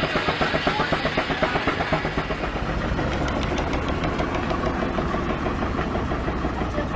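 John Goodison steam traction engine running on the belt, its exhaust chuffing in an even beat of about four a second. About two seconds in the beat gives way to a more even running sound.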